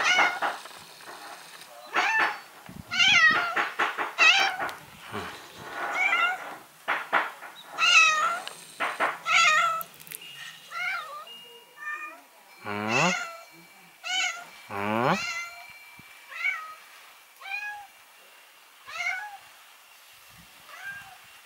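A domestic cat meowing over and over: a quick run of loud meows at first, then softer meows about once a second, with two longer, drawn-out meows about halfway through.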